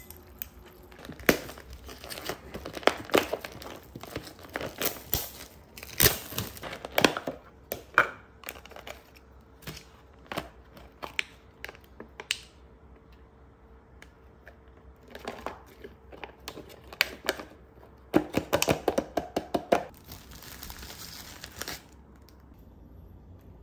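A clear plastic salad container and its compartment tray being opened and handled: a run of sharp plastic clicks and crackles over the first half, then a second, denser spell of clicks and rustling that stops a couple of seconds before the end.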